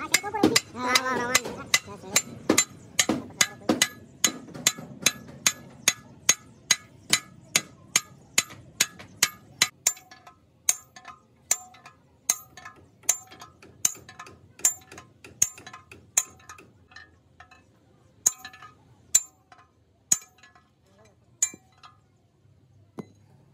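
Metal being hammered repeatedly, about two ringing clinks a second. The blows pause briefly about two-thirds of the way through and stop near the end.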